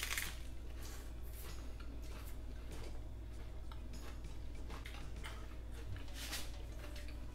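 A bite into a hard corn taco shell with a sharp crunch at the start, followed by scattered crunching clicks as the mouthful is chewed.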